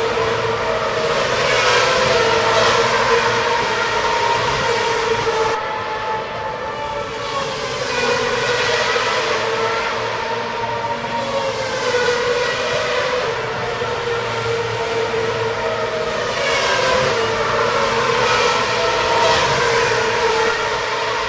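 Racing car engines running at high revs on a race track, with cars passing one after another: the pitch slides as each goes by, over a steady high drone. The sound changes abruptly about five and a half seconds in.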